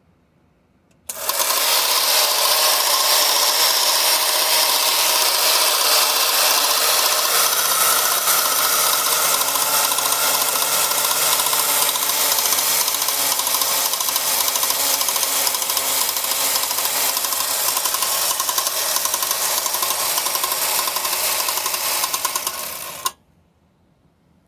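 1940s Marx WWI Doughboy windup tin tank running on its clockwork spring motor: a loud, steady mechanical whirring rattle of the spring-driven gears, tin body and flint sparking mechanism. It starts about a second in, runs for about twenty seconds, and cuts off suddenly as the spring runs down.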